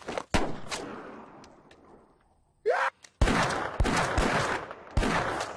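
Revolver gunfire: a shot about a third of a second in and a second just after, each trailing into a long echoing decay. Near the middle comes a man's short cry, then four more shots in under two seconds.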